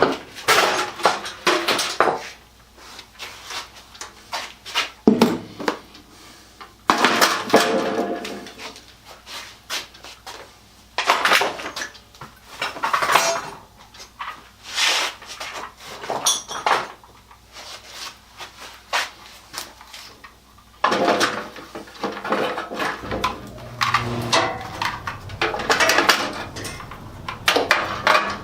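Hard tools and parts being handled and set down on a workbench: repeated clacks, clinks and rattles coming in clusters.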